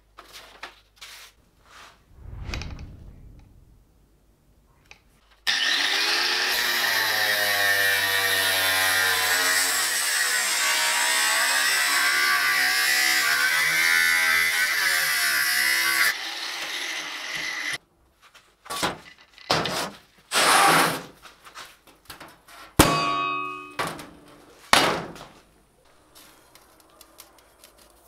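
A workshop power tool runs steadily for about ten seconds, its pitch wavering as the load changes. Then come several separate knocks and clanks of steel, one of them ringing briefly.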